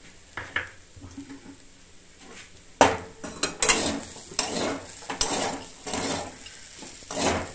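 Metal spatula scraping and stirring semolina with vegetables and peanuts in a metal kadai. After a quiet start with a couple of faint clicks, the scraping strokes begin about three seconds in and repeat a little under a second apart.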